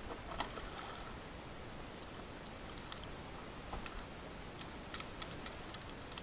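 Handling noise from fishing gear on a plastic kayak: a few faint, scattered clicks and taps over a steady low hiss.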